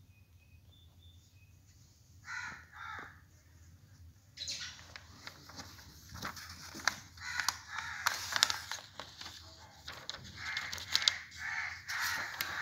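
Two short bird calls about two seconds in. From about four seconds on, the pages of a paperback book rustle and crinkle as they are handled and turned.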